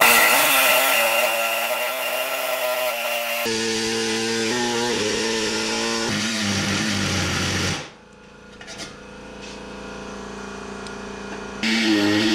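Pneumatic air body saw cutting through the sheet-metal grille shell of a 1932 Ford. It starts abruptly with a loud hiss and buzz whose pitch wavers as the blade works through the cut, then stops about eight seconds in. A loud sound returns near the end.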